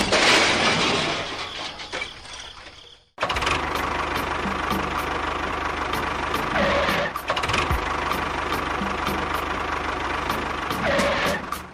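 An engine-like machine sound running steadily with regular sharp clicks and a dense low rumble, after a sudden cut about three seconds in. Before the cut, a louder noisy sound fades away.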